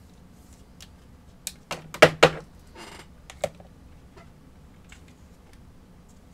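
Trading cards being handled and set down on a table: scattered light clicks and taps, with two sharper knocks about two seconds in and a brief rustle just after.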